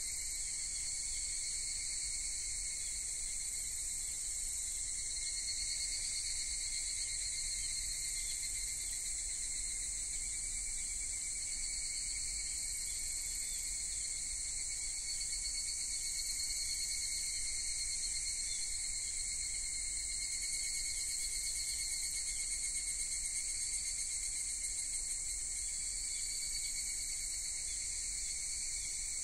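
A steady, high-pitched chorus of insects trilling without a break.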